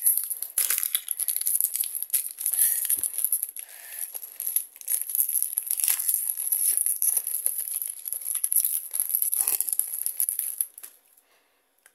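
Foil Pokémon booster pack wrapper crinkling and tearing as it is ripped open by hand, then rustling as the cards are slid out of it. The crackling stops about a second before the end.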